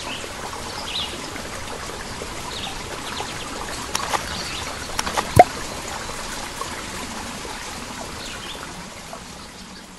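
Stream ambience: water trickling steadily, with scattered short bird chirps and a sharp water plop about five seconds in, fading out near the end.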